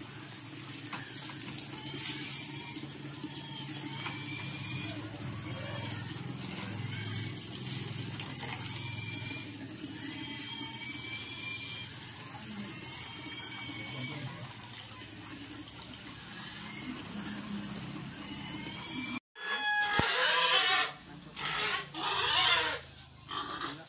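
Pig squealing and grunting in loud, irregular bursts in its pen at feeding time. This comes near the end, after a long stretch of low steady background with repeated short high chirps.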